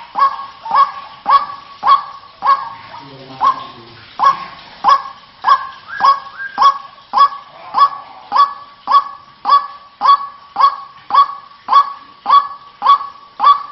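White-breasted waterhen (ruak-ruak) calling over and over: a honking call about every 0.6 seconds, with a short break about three seconds in. It is a lure call, used to draw waterhens in rice paddies.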